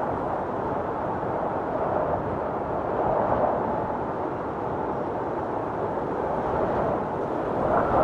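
Blizzard wind blowing hard and steadily in a dense rush, with a low howl that swells briefly about three seconds in.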